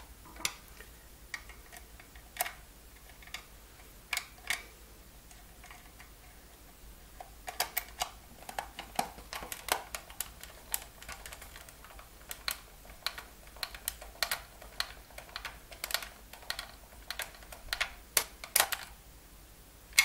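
Light clicks and taps of hard plastic as a Coleco Super Action Controller's housing and parts are handled and fitted back together. They come singly at first, then thick and irregular, several a second, from about seven seconds in.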